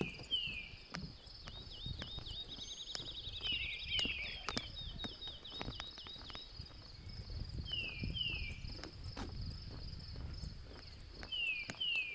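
Forest birds calling: a pair of quick, falling whistled notes repeated four times, with a fast trill about three seconds in. Under them run a steady high insect hum and footsteps on a boardwalk.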